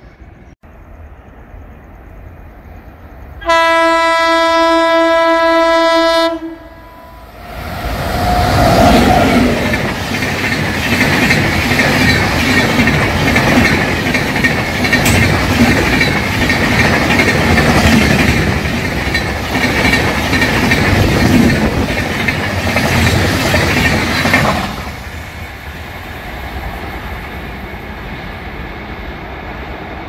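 Locomotive horn of an Indian Railways express train, one long blast of about three seconds as the train approaches. The train then passes at speed for about seventeen seconds, a loud steady rush of wheels on rails, which drops off suddenly as the last coach goes by.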